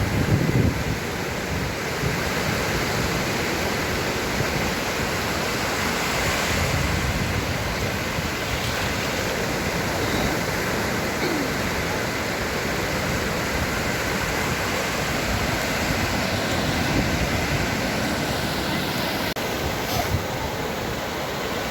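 Sea waves: a steady rush of surf that swells gently now and then.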